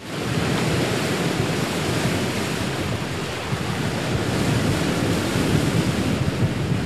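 Steady rush of ocean waves and wind, fading in at the start and holding at an even level.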